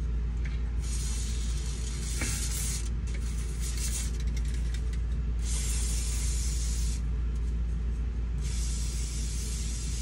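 Aerosol lubricant spray hissing out through its straw nozzle in several bursts of a second or two, one of them sputtering, as it coats plastic reel gears. A steady low hum runs underneath.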